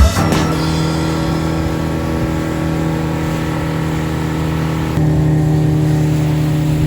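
Boat engine running steadily under way, stepping up a little louder about five seconds in.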